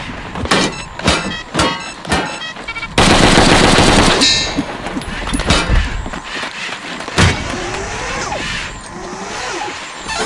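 Rifle gunfire: four single shots about half a second apart, then about a second of rapid continuous fire, followed by a few more scattered shots.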